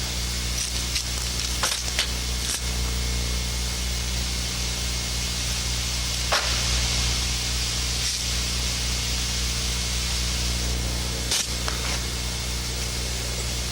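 Steady tape hiss with a low electrical hum, broken by about five short clicks or knocks: two close together about two seconds in, one at about six seconds and one near the end.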